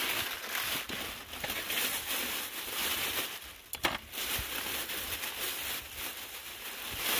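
Thin clear plastic bags crinkling and rustling as they are handled and opened, with a sharp click a little under four seconds in.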